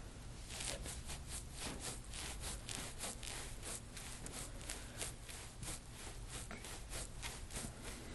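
Hands rubbing and massaging skin in quick repeated strokes, about four a second, beginning about half a second in.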